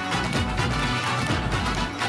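Loud stage-show music with a steady beat, accompanying a dance number.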